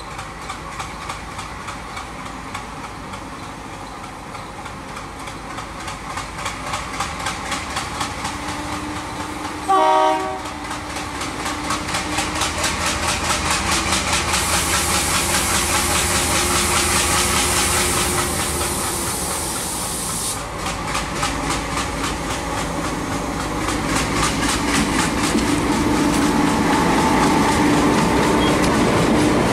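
Indian Railways ALCo diesel locomotive hauling passenger coaches approaches and passes close, its engine and rhythmic wheel clatter growing louder. One short horn blast sounds about a third of the way in, and a high hiss runs for several seconds midway.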